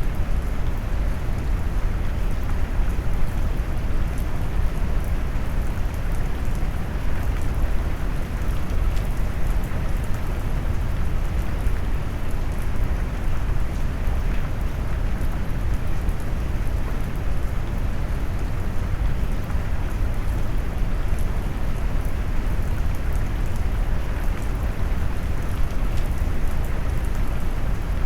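Steady heavy rain mixed with brown noise: a deep, even rumble with the higher patter of raindrops muted. It holds unchanged.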